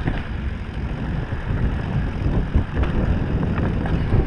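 Mountain bike rolling fast over a dirt singletrack: tyre rumble and bike rattle, with a few sharp knocks over bumps and wind buffeting the handlebar-mounted microphone.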